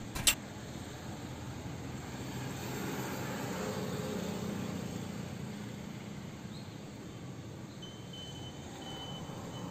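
A single sharp click just after the start, then a steady low hum of vehicle noise that swells over a couple of seconds and fades.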